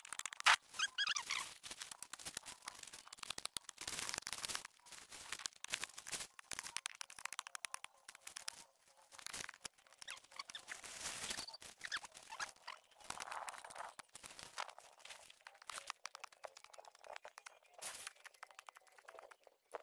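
A metal digging tool scraping and stabbing into earth around a shrub's roots: irregular crunching and scraping strokes, with crumbling soil and cracking roots.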